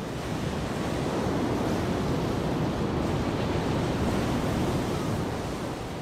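Heavy surf breaking and churning against a rocky shore, a steady rush of sea water.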